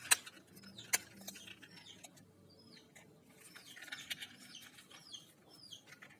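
Faint bird chirps: short, high, falling notes repeated every half second or so. A couple of sharp clicks come in the first second.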